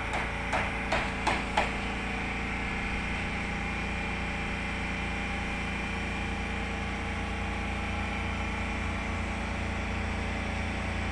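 Steady hum of running machinery that powers the tank aeration, holding several fixed tones. A few short knocks come in the first two seconds.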